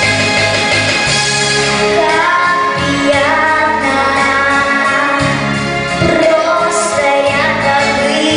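A female vocalist singing a melody over instrumental accompaniment with a steady bass line.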